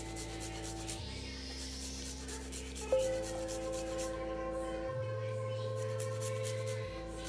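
Fresh ginger root being grated by hand on a metal grater: quick repeated scraping strokes in spurts, over background music with soft held chords.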